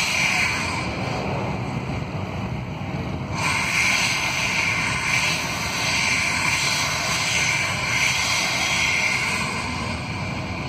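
Steam hissing and rushing out of the hood-mounted smokestack of a steam-powered 6x6 Jeep, over a steady low rumble. The hiss eases off briefly near the start and swells again about three and a half seconds in.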